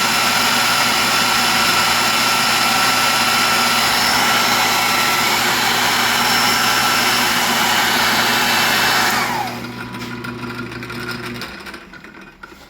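A Dumore tool post grinder runs at high speed, grinding the jaws of a South Bend lathe's three-jaw chuck while the lathe turns. About nine seconds in, the grinder is switched off and winds down with a quickly falling whine. The lathe's motor hum carries on for a couple more seconds, then stops.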